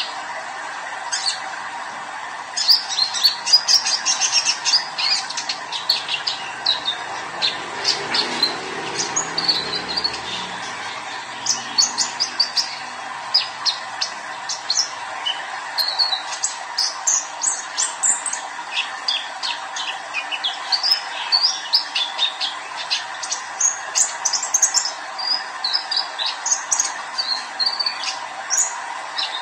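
Young male kolibri ninja (brown-throated sunbird) singing in a cage: rapid, busy twittering of short, high chirps, coming in quick runs almost without a break from a few seconds in, over steady background noise.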